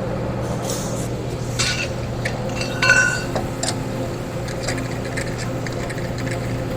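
Metal tools and parts clinking and knocking now and then, the loudest clink about three seconds in, over a steady low hum.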